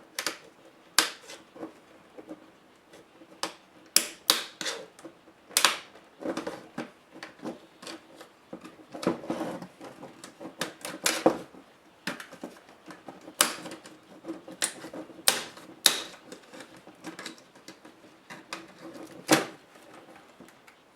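Irregular sharp clicks and taps of plastic and metal laptop parts being handled and pried apart, with a busier stretch of clicks and scraping around the middle.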